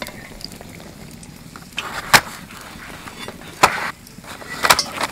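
Three sharp metallic knocks of a slotted spoon against the wok and the wire strainer basket as fried aubergine fritters are lifted out and set down, the first about two seconds in and the loudest.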